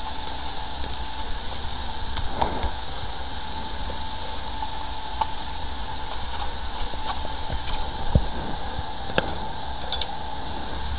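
A steady machine-like hiss with a faint steady whine under it, and a few light clicks and knocks scattered through it.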